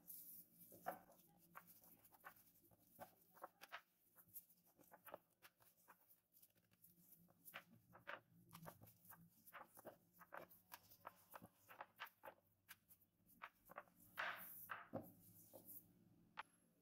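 Faint, irregular soft taps and knocks as hands and a rolling pin flatten a floured lump of dough into a sheet on a wooden board. There is a slightly louder run of knocks near the end.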